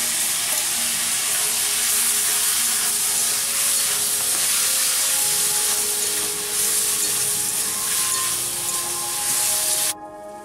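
Vegetables sizzling loudly in hot oil in a metal wok as ground onion, ginger, garlic and red chili paste is stirred in with a metal spatula. The sizzle cuts off suddenly near the end.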